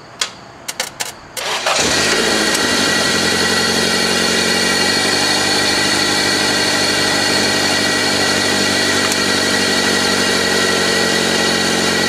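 A few sharp clicks, then the 1997 Toyota Corolla's engine cranks briefly and catches about two seconds in, running steadily after that. The starter is being fed directly with a jumper wire from the battery, because its solenoid plunger and contacts are worn out.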